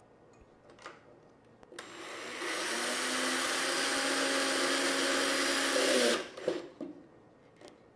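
Power drill driving a screw through a metal bracket into a molly bolt in drywall: the motor whirs up about two seconds in, runs steadily for about four seconds and stops. A few light clicks come before and after.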